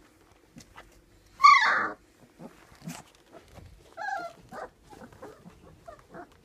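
Puppies whining and yelping: one loud, high cry that falls in pitch about a second and a half in, then shorter, softer whimpers, with small clicks and rustles around them.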